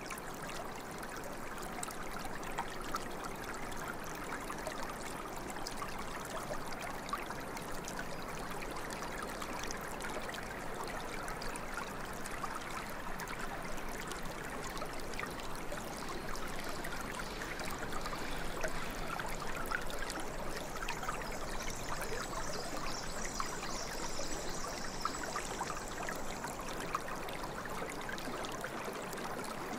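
Steady running water from a trickling stream, an even, unbroken rush.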